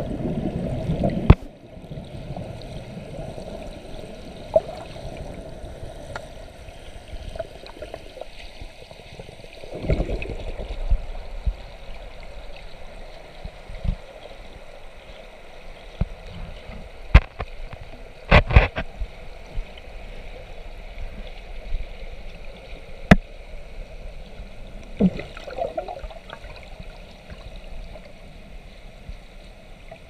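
Waterfall plunge pool heard underwater: churning bubbles rumble loudly, then stop abruptly about a second and a half in. After that a quieter, steady watery wash, with scattered sharp clicks and knocks.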